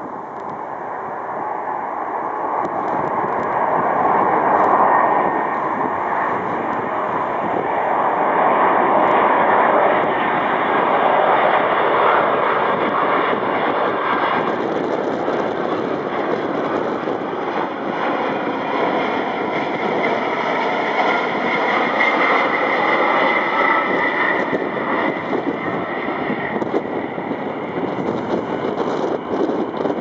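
Boeing 747-200 freighter's four jet engines on final approach, a loud roar building over the first few seconds as the jumbo comes close and passes overhead. A higher whine rises out of the roar about two thirds of the way through.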